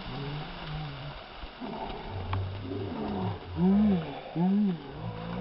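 Wordless human voice calls, low hoots and groans that swoop up and down in pitch, with two loud arching calls about two thirds of the way in, while snow shakes down from a laden fir tree.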